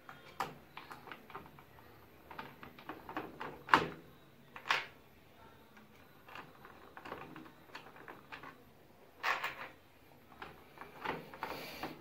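Scattered clicks, taps and plastic knocks as a screwdriver works on a washing machine's control board and the board is pried out of its plastic console housing. Three louder knocks come about four, five and nine seconds in.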